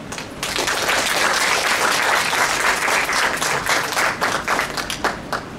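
Audience applauding: dense clapping starts about half a second in, then thins to a few scattered claps near the end and stops.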